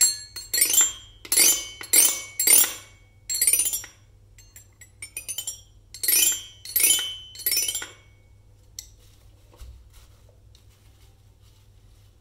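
Children's toy xylophone with painted metal bars struck one note at a time with a small ball-headed wooden mallet, each note ringing briefly, with a run of softer, quicker taps in the middle. The playing stops about eight seconds in, leaving only a few faint ticks.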